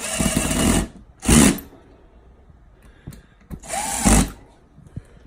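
Power drill run in three short bursts, driving the drain pump's mounting screws; the last burst winds down as the trigger is released.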